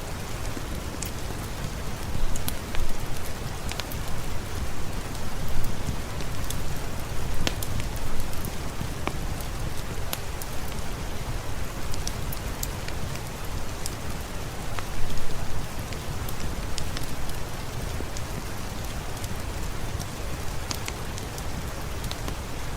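Steady rain falling, with many scattered sharp ticks and crackles through it. The rain swells louder a few times.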